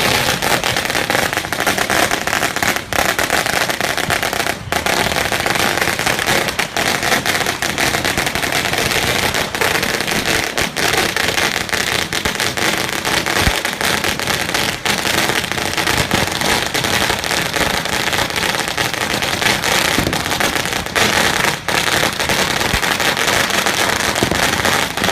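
A very long string of firecrackers (a 16,000-cracker roll) going off in a continuous rapid crackle of cracks, too fast to count, with no let-up.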